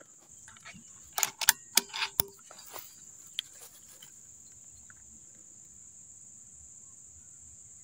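Steady high-pitched chirring of crickets, with a quick cluster of sharp clicks and knocks about a second in from handling the scoped air rifle.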